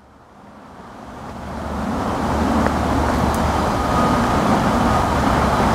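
A motor vehicle's engine and rumble drawing closer, growing louder over the first two seconds or so and then running steadily, with a faint thin whine joining in past halfway.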